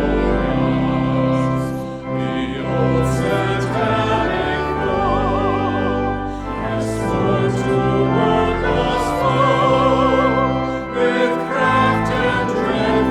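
Sung music in a worship service, likely a hymn: voices holding notes with vibrato over a sustained instrumental accompaniment with steady bass tones.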